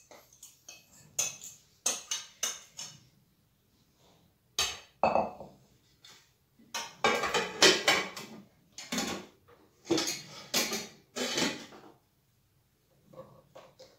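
Kitchen clatter in several bursts: a plastic bowl tapped and scraped against a stainless steel pot, and bowls and plates knocked and set down on a metal worktop.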